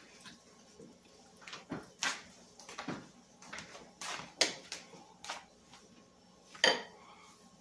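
Scattered light clicks and knocks of spice jars and a plastic food container being handled on a kitchen counter while chicken is seasoned, with one sharper knock about a second before the end.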